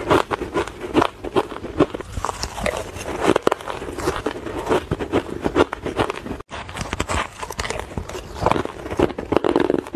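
Shaved ice being bitten and chewed by the spoonful, close to a clip-on microphone: a dense run of quick, irregular crunches. The sound drops out for an instant about six and a half seconds in.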